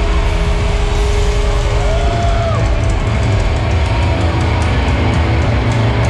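Hardcore band playing live and loud: distorted guitars, heavy bass and drums through the PA, heard from inside the crowd at the front.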